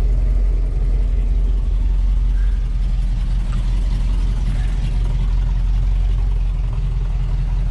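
Car engine idling steadily at operating temperature while its cooling system is burped of trapped air after a thermostat change.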